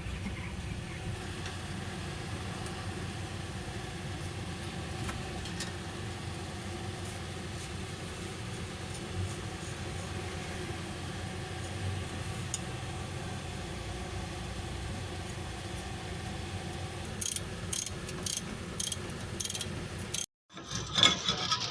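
Car running steadily: a continuous drone with a few steady hum tones, and a short run of light clicks near the end.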